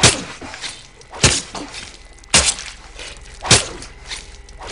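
Four heavy chopping blows of a meat cleaver into a body, evenly spaced a little over a second apart: a film's kill sound effect.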